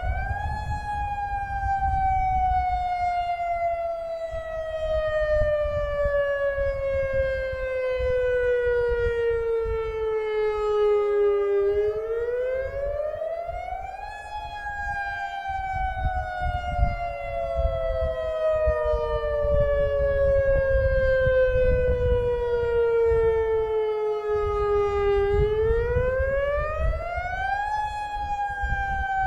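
Federal Signal Modulator lahar warning siren sounding in a test. Its loud tone rises quickly over about two and a half seconds, then falls slowly for about eleven, and the cycle comes round twice. A second, fainter siren wail glides up and down beneath it at times.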